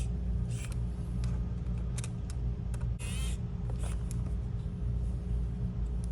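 Screws going back into a laptop's bottom cover: scattered small clicks and taps of a screwdriver bit on screws and the plastic case, with a brief electric-screwdriver whir about three seconds in. A steady low hum runs underneath.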